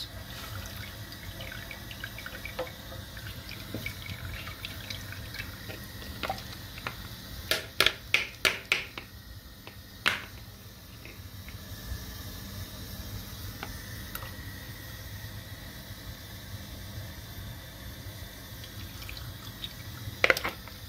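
Thin yogurt lassi trickling and dripping through a steel mesh sieve into a pot of curry masala. A quick run of sharp taps comes about a third of the way in, and another near the end.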